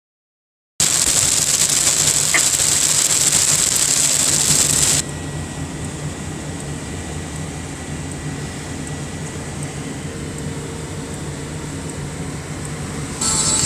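Car cabin noise while driving. It starts abruptly just under a second in as a loud hiss of rain and wet tyres. About five seconds in it drops suddenly to a quieter, steady engine and road hum.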